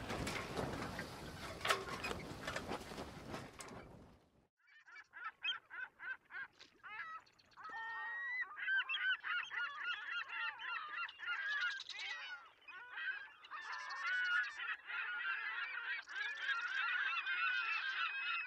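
A rushing, crackling noise that cuts off abruptly about four seconds in. It is followed by a flock of birds calling, many overlapping calls that build into a dense chorus.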